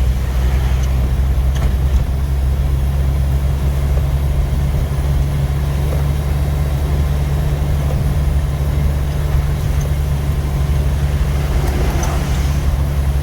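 Steady engine and road noise of a 1988 Jeep YJ being driven, heard from inside the cabin. It is a loud, constant low rumble, and the Jeep is noisy.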